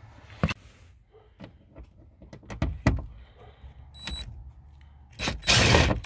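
A few light clicks and taps of handling, then near the end a loud burst of less than a second from a cordless DeWalt impact driver running a 7 mm socket on a screw in the plastic lower dash trim panel, backing it out.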